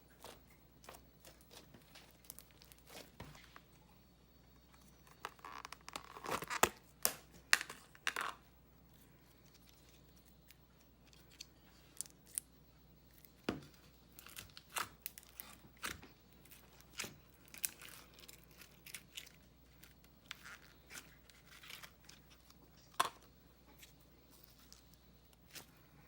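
Handmade slime squished and stretched by hand, giving irregular sharp pops and crackles from trapped air, busiest about six to eight seconds in.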